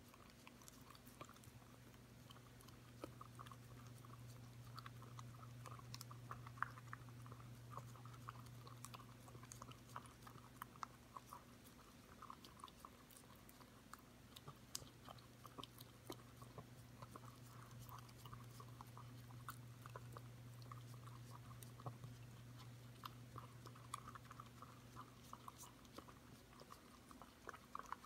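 A five-month-old Corgi puppy licking yogurt out of a small plastic cup: faint, quick tongue clicks and smacks against the cup, over a steady low hum.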